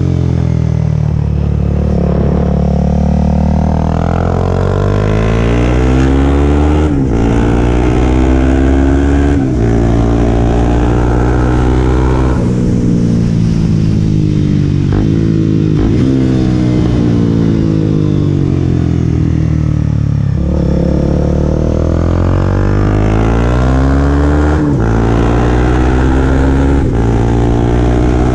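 Sport motorcycle running through a cheap eBay replica Akrapovic exhaust that has been on the bike for a year, ridden hard up through the gears. The engine note climbs and drops sharply at each shift, several times over, and falls away more slowly when the throttle is rolled off.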